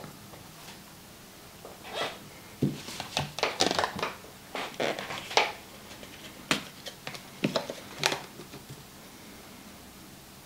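Scattered short clicks and scrapes of a table knife against a plate as butter is spread on pancakes, stopping after about eight seconds.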